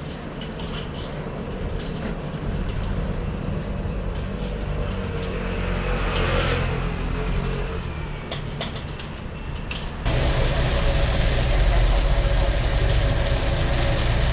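Street background with a low, engine-like rumble and a few faint clicks. About ten seconds in it cuts to a louder, steady low machine drone with a hiss over it, at a griddle cooking stall.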